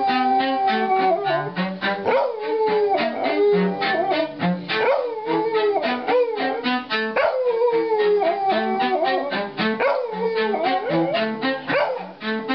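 A small dog howling along with a cello. It gives several long howls, each jumping up quickly and then sinking slowly in pitch. Under them the cello plays a run of short, low bowed notes.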